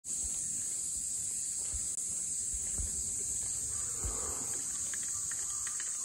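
Steady high-pitched drone of summer cicadas, with a few soft low thumps of handling noise.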